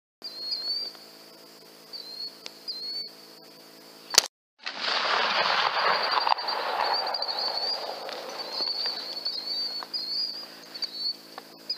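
A single rifle shot about four seconds in, recorded by the riflescope's microphone, which cuts out for an instant. It is followed by a few seconds of loud rushing noise that fades away. Crickets chirp throughout over a steady low hum.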